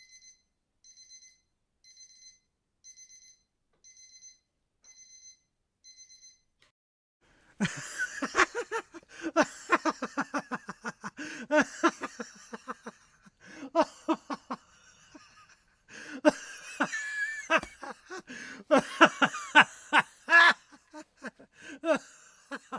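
An electronic alarm clock beeps in short, rapidly pulsing bursts about once a second for roughly six seconds. After a short pause comes a much louder, choppy run of quick voice-like pulses with sliding pitch, broken by brief gaps, which carries on to the end.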